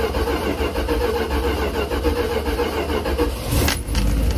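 Old vehicle's engine being cranked on the starter after the gas pedal has been pumped, the starter turning it over with an even rhythm, then catching about three and a half seconds in and settling into a steady low running sound.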